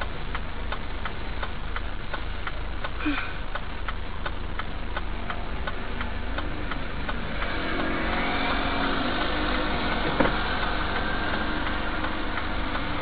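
Car engine idling, heard from inside the cabin, with a steady clicking about two to three times a second. From about halfway through, more engine sound of passing traffic builds up, and a single sharp knock comes near the end.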